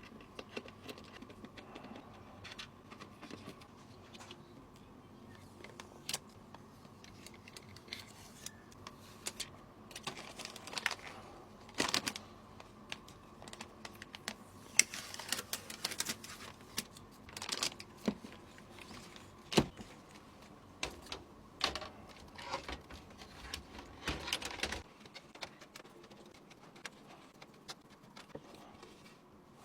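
Irregular small clicks, taps and light knocks of hard computer parts being handled and fitted together by hand, with a few sharper clicks among them.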